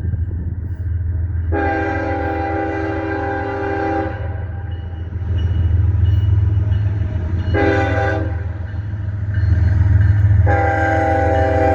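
Freight locomotive air horn sounding a chord of several tones: one long blast, a short one, then another long blast starting near the end. Beneath it runs the steady low rumble of the diesel locomotive and the train passing.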